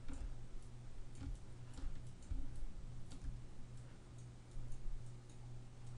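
Faint, irregular clicks of a computer mouse over a steady low electrical hum.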